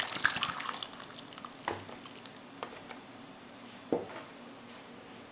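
Water pouring from a plastic bottle into an aluminium saucepan of diced apples, splashing and trickling for about the first second, then tapering off. A few light clicks and knocks follow, spaced about a second apart.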